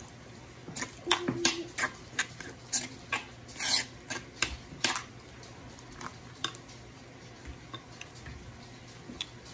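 Metal spoon stirring chunky salsa in a stone molcajete, scraping and clinking against the rough volcanic stone in a run of irregular clicks and scrapes. The clicks thin out after about six seconds.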